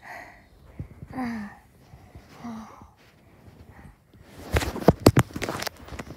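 A few short breathy voice sounds, then, about four seconds in, a loud run of knocks and rubbing from a phone being handled and carried.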